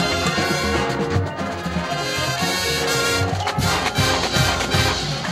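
College marching band playing: the brass section sounds sustained chords over steady drum strokes, and the low drums grow heavier in the last couple of seconds.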